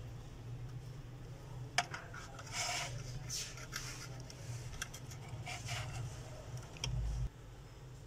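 Small parts and hand tools handled on a workbench: a sharp click, then scratchy rubbing as a mobile phone circuit board and its microphone are picked up and worked on, over a steady low hum. A dull bump comes near the end.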